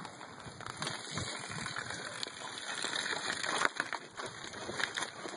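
Irregular scuffing and squelching of cattle hooves and footsteps moving through wet muck, with scattered short clicks and knocks.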